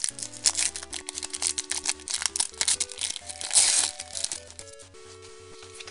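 Pokémon trading card booster pack's foil wrapper crinkling and tearing as it is ripped open by hand, with a louder rip about three and a half seconds in. The crinkling stops about five seconds in, and background music plays throughout.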